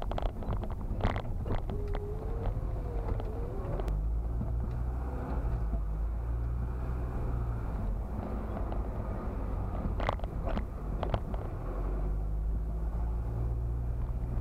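Car driving slowly, heard from inside the cabin: a steady low engine and road rumble, with a few sharp clicks or knocks about a second in and again about ten seconds in.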